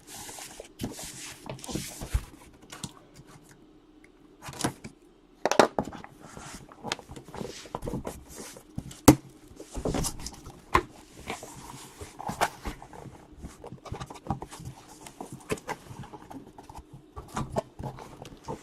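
Cardboard case of trading card boxes being handled and opened: irregular rustles, scrapes and knocks.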